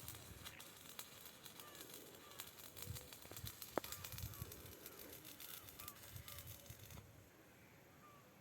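Faint outdoor ambience: small bird calls repeating every second or so, over a scatter of crackling clicks that stops about seven seconds in, with one sharper click near the middle.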